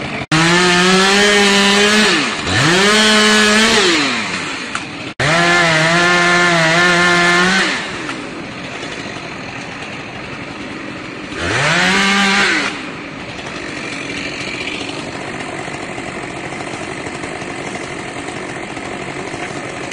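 Stihl chainsaw revved to full throttle four times, in runs of about one to two and a half seconds, its pitch climbing sharply at the start of each, then running at a lower, steady level while it clears a fallen tree.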